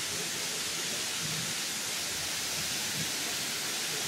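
Steady rushing of Dry Falls, a large waterfall, its water pouring and splashing onto rock.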